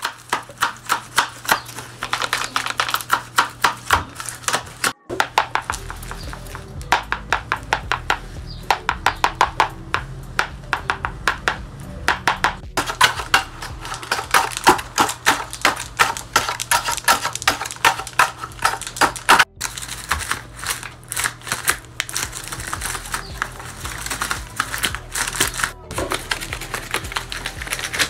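Paper dragon puppets' jaws being snapped open and shut over and over, a fast run of sharp papery clacks several times a second that breaks off briefly a few times.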